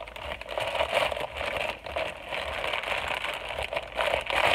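Plastic mailer wrapping crinkling and crackling as hands pull and tear at it, in irregular surges.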